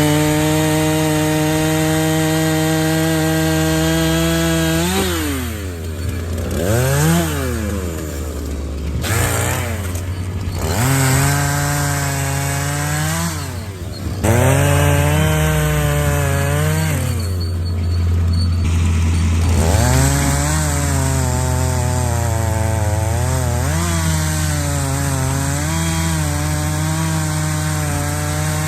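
Chainsaw bucking a large felled maple trunk into firewood lengths. It runs at full throttle through the cut for the first several seconds, then its revs drop and climb again several times as cuts finish and new ones start. A steady low hum runs underneath.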